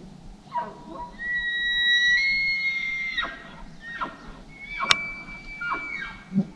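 Six-point bull elk bugling: a rising call into a high whistle held for about two seconds, then a series of short falling chuckles.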